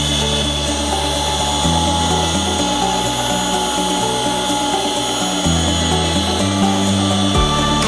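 Electric hand mixer's motor running steadily with a constant whine, under background music with a bass line that changes note about once a second.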